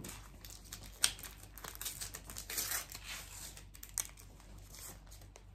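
Crinkling and tearing of a Panini Adrenalyn XL trading-card pack wrapper as it is ripped open by hand and the cards are pulled out. There is a run of crackles with sharper snaps about a second in and again later.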